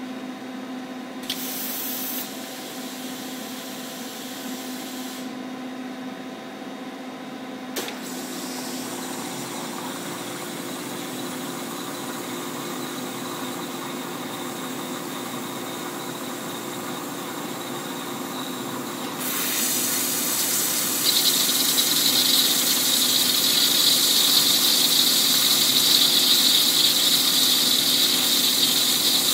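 Mitsubishi FX10 CNC wire EDM running its automatic wire-threading cycle, with a steady machine hum. There is a short hiss about a second in and a click near eight seconds. From about nineteen seconds water jets spray loudly, louder still from about twenty-one seconds.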